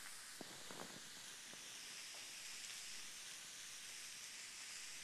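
Raw hamburger patties of ground beef sizzling on a hot nonstick griddle pan: a steady, quiet hiss with a few faint crackles in the first second.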